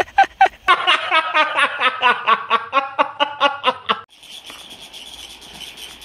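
A person laughing in a quick run of short, pitched laughs for about four seconds. Then, from about four seconds in, a steady high-pitched insect chorus takes over.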